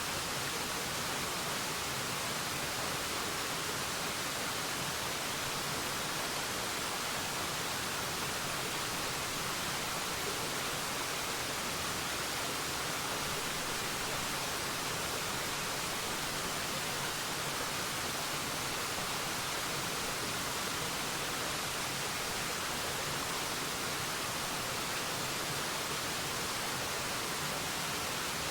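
Waterfall: a steady, unbroken rush of falling water with a bright hiss, and no changes or separate splashes.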